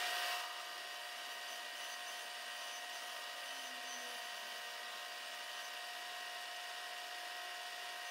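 Milling machine spindle running with a steady whine while a 5/8-inch radius-ended end mill skims the surfaces of the cast mill base. A louder hiss for about the first half second, then it settles to an even run.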